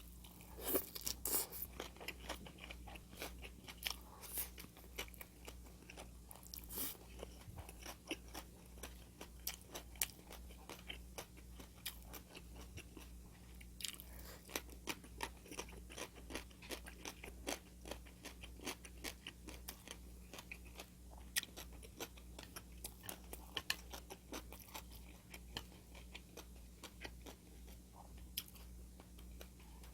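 Close-miked chewing and crunching of crisp food, many small crunches with a few louder bites. A steady low electrical hum runs underneath.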